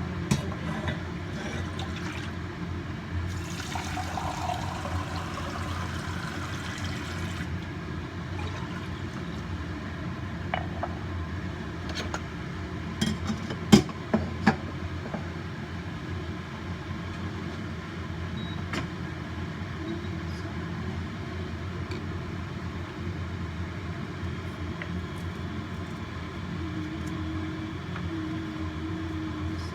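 Water being brought to the boil in a pot on a kitchen stove: a steady low hum, with a few seconds of pouring-water hiss about three seconds in. A few sharp clinks of a utensil or pot come around the middle.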